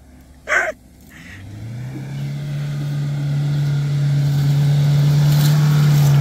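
Off-road 4x4 SUV engine revving up under load and held at high, steady revs, growing louder over the first few seconds.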